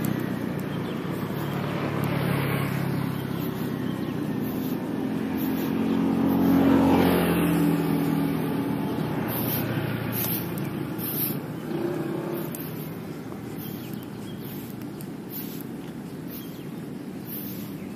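A motor vehicle's engine passing close by, loudest about seven seconds in, then fading to a quieter, steady traffic hum.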